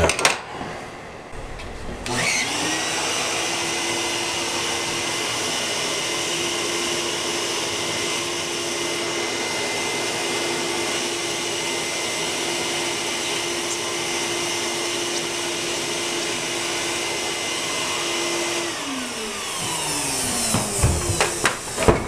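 Vacuum cleaner sucking dust out of a laptop's cooling fan. The motor spins up about two seconds in, runs steadily with a constant whine, and winds down near the end, with a couple of knocks as it stops.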